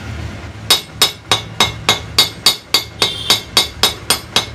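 Rapid metal-on-metal tapping, about three to four sharp ringing strikes a second, starting just under a second in. A steel rod is knocking down a raised spot inside a jack's bearing seat to flatten it before a new bearing goes in.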